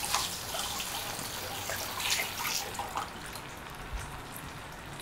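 Batter-coated stuffed potato deep-frying in hot oil: a steady sizzle with irregular small crackles.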